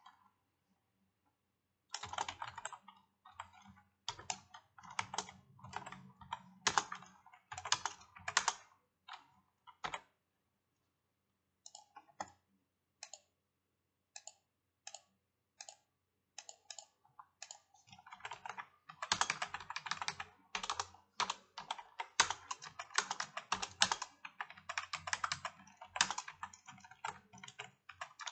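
Typing on a computer keyboard. It starts about two seconds in as bursts of keystrokes, slows to a few scattered key clicks in the middle, then becomes fast, steady typing for the last ten seconds or so.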